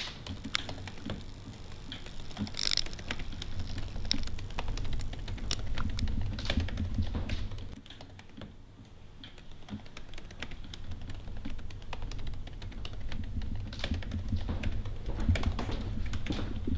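Typing on a computer keyboard: irregular runs of quick keystroke clicks over a low steady hum.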